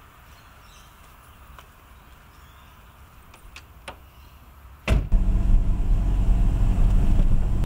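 A few faint clicks, then about five seconds in an engine starts abruptly and keeps running with a steady low hum.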